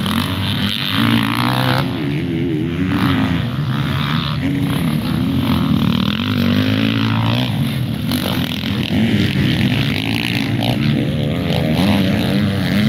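Motocross dirt bikes racing, their engines revving up and down with the pitch rising and falling as the riders work the throttle. More than one bike is heard at once.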